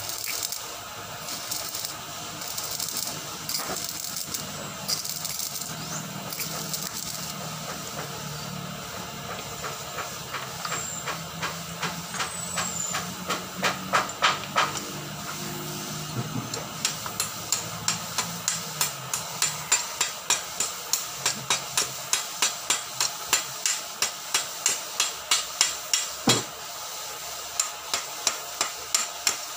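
Arc welding with a stick electrode, a crackling hiss, for the first several seconds. Then a hand chipping hammer knocking slag off the fresh weld: sharp metal taps, a few at first, then a steady run of about two a second through the second half, the loudest sound here.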